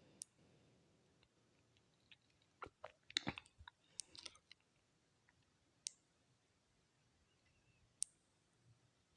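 Near silence with a few scattered small clicks and light knocks: a short cluster about three seconds in, then single sharp clicks around six and eight seconds.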